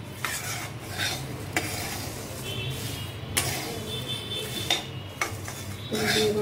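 A flat steel spatula stirs and scrapes flattened rice (poha) and peanuts around a steel kadai as the chivda mix dry-roasts to crispness. It is a dry rustle broken by irregular scrapes of metal on the pan.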